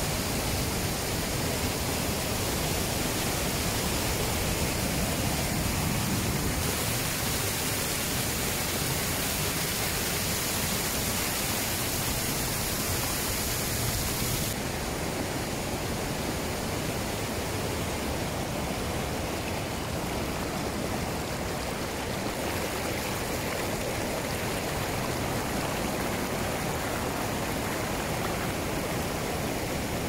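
Waterfall and rapids: water pouring over rock ledges and rushing through a rocky stream, a steady, even rush. The hiss turns a little duller about halfway through.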